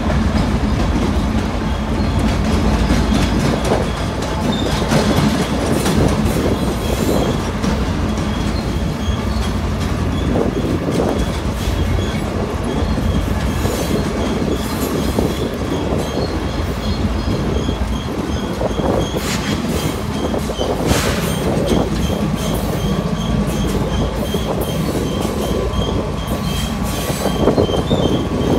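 Ferrosur freight train rolling slowly past at close range: diesel locomotive rumble with wheels clicking and knocking over the rails and a couple of sharper metal clanks about two-thirds of the way through. A faint high squeak repeats many times under it.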